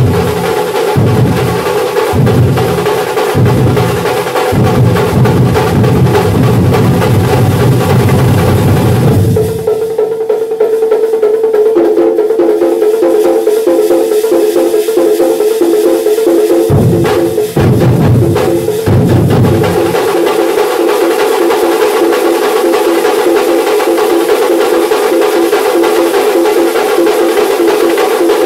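Thambolam percussion band playing: big drums beating a fast rolling rhythm under held melody notes. About nine seconds in the drumming mostly stops and the held notes carry on, broken by a few heavy drum strokes a little later.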